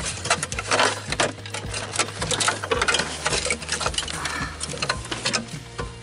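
Hands rummaging among wiring and plastic connectors behind a truck's dashboard: quick, irregular clicks and rattles over a steady low hum.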